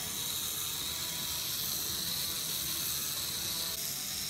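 Electric motor and plastic gears of a LEGO Technic walking robot dog running steadily.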